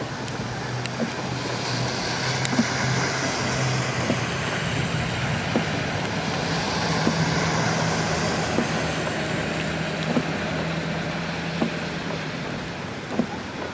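Vehicles driving slowly through deep floodwater on a street: a steady wash of water and rain with an engine's low hum, which shifts a little higher in pitch about halfway through, and a few scattered small ticks.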